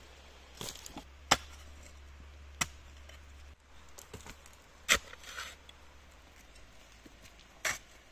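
Small folding steel shovel striking and chopping into stony forest soil and roots: about six sharp, separate strikes at uneven intervals, the loudest about a second and a half in and about five seconds in, with scraping and dirt falling between them.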